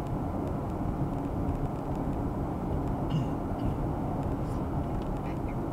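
Steady road noise of a car driving at speed, heard from inside the cabin: an even low rumble of tyres and engine.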